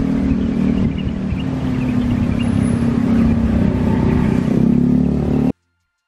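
A steady low rumble and hum, with faint high chirps over it; it cuts off suddenly about five and a half seconds in.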